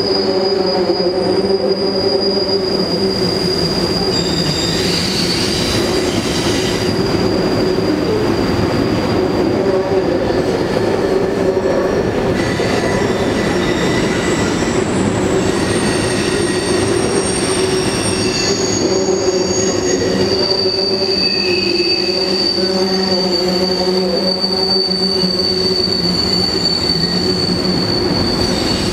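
Freight train of covered hopper cars rolling across a steel trestle bridge: a steady rumble with high-pitched squealing from the train, several squeal tones holding and then shifting in pitch now and then.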